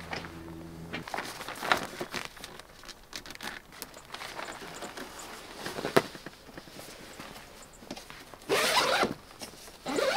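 Zipper on a Thule Foothill rooftop tent's fabric window being worked, with fabric rustling and clicks, then two long zip pulls near the end. A low steady hum cuts off about a second in.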